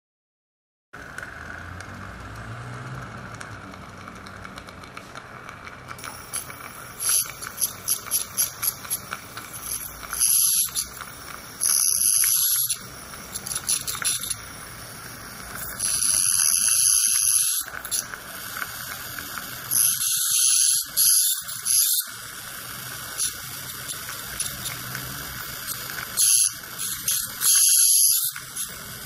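Satelec piezoelectric ultrasonic handpiece with a Perfect Margin insert working along tooth margins with its water spray. It makes a high hiss that comes in repeated bursts of one to two seconds over a steady hum.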